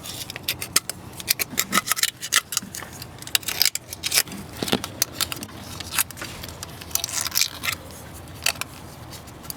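Razor blade scraping old sealant off the engine's thermostat mounting surface: quick, irregular scratching strokes.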